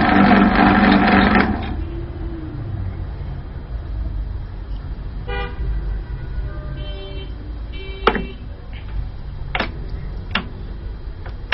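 A loud, steady horn-like blare of several tones for about the first second and a half, then a low steady hum. Three sharp clicks come near the end as the small lathe's control buttons are pressed.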